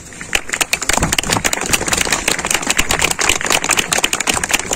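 Crowd applauding: dense, rapid clapping that starts just after the beginning and thins out near the end.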